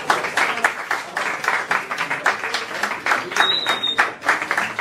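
Audience applauding, with many rapid, irregular claps mixed with voices chatting. A short, steady, high tone sounds about three and a half seconds in.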